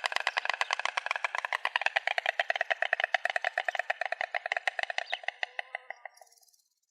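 A stork clattering its bill: a long, rapid, even run of wooden clacks, about ten a second, that fades out about six seconds in.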